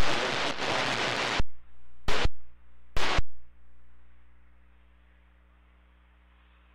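Static bursts from an air traffic control radio as transmissions key on and off: a loud rush of hiss for about a second and a half, two short crackles about 2 and 3 seconds in, then a hiss that fades away.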